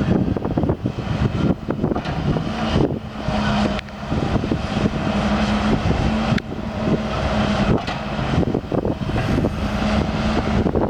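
Backhoe's diesel engine running steadily, with a few sharp knocks as it digs.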